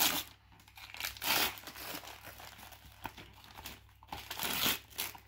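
Wrapping paper being torn and crumpled as a present is unwrapped, rustling in fits and starts.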